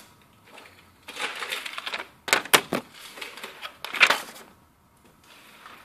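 Paper being handled and crumpled: a second-long rustle, then a few sharp paper snaps and crackles.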